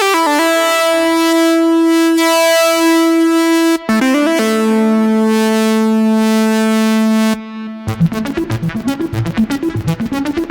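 IK Multimedia UNO Synth Pro analog synthesizer playing two long, bright held notes, each reached by a quick downward pitch glide. From about eight seconds in it switches to a fast sequenced pattern of short, plucky notes.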